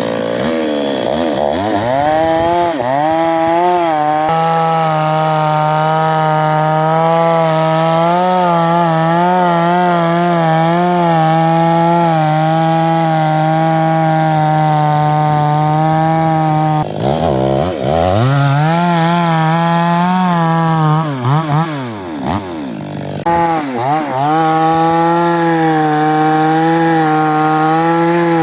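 Toyama two-stroke petrol chainsaw held at high revs, cutting through a log, its pitch wavering slightly under load. About two-thirds of the way through, the engine drops off and revs up again a couple of times before settling back into a steady cut.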